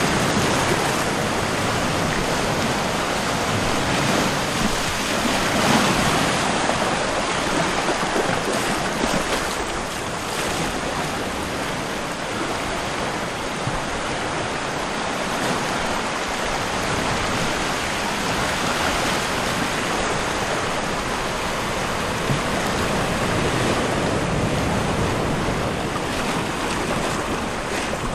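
Steady rushing noise that swells a little now and then.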